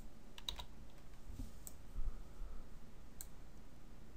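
Computer keyboard keystrokes and mouse clicks: a quick cluster of clicks about half a second in, then single clicks near the middle and a little after three seconds, over a faint low rumble.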